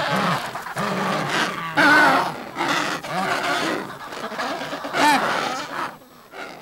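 A crowd of Adélie penguins calling over one another with pitched calls that rise and fall. Louder calls stand out about two and five seconds in, and the calling dies down near the end.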